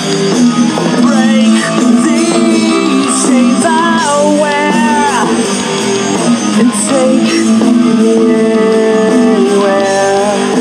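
Studio recording of a rock song played by a band on guitars, bass and drums. In the middle of the passage a melody line bends and glides in pitch over the steady band.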